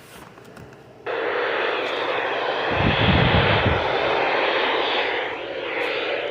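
Radio receiver static: an even hiss that cuts in suddenly about a second in, as a weather radio loses its station. A short low rumble comes about three seconds in.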